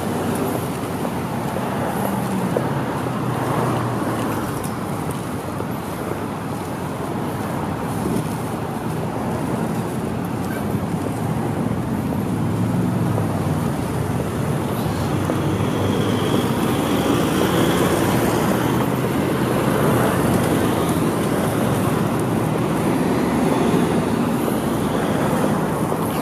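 Road traffic on a busy street: a steady wash of car engines and tyres passing close by, growing somewhat louder in the second half.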